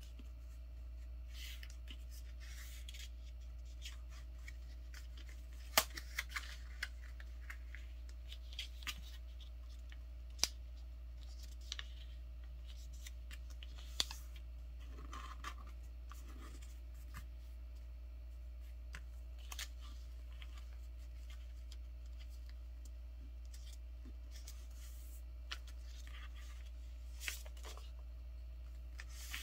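Sheet of paper being folded by hand into a paper airplane: scattered short rustles, scrapes and taps as creases are pressed and slid flat against the table, the sharpest about six seconds in. A steady low hum runs underneath.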